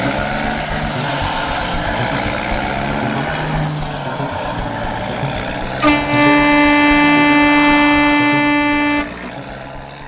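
Vehicle engine and road noise, then about six seconds in a truck horn sounds one long, steady, loud note for about three seconds and cuts off.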